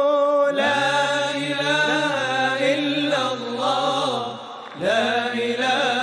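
Devotional Islamic chant (nasheed) sung by male voices holding long, wavering melismatic notes over a low steady drone. The voices dip briefly and come back near the end.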